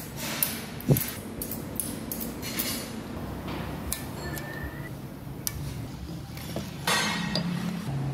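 Light metallic clinks and taps as steel main-bearing shells are handled and seated into the cast-iron crankcase saddles of an Isuzu 4JJ diesel block, with one sharper knock about a second in.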